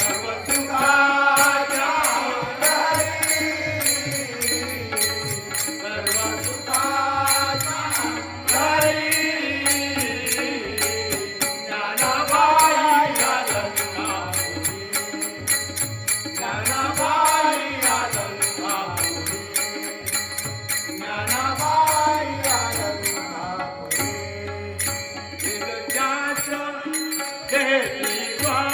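Marathi devotional abhang sung in a slow, ornamented melody, with a steady high metallic beat keeping time underneath.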